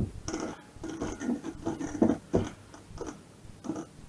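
Hands rubbing and massaging oil and tandoori spice powder into sliced raw chicken breast, a run of irregular wet rubbing and squelching strokes. A sharp knock comes right at the start.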